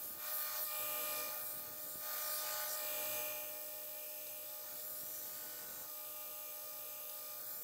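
2x72 belt grinder running with a steady whine and hiss as forged steel knife blades are held against the belt to grind off forge scale, briefly louder about half a second in and again around two seconds in.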